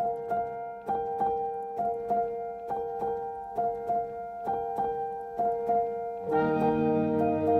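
Background instrumental music: a steady pulse of bright keyboard notes, about two a second. A fuller, lower layer of sustained chords joins about six seconds in.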